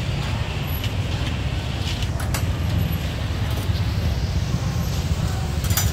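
Street-market ambience dominated by a steady low rumble of passing traffic, with faint voices and a few sharp clicks or clatters, one about two seconds in and one near the end.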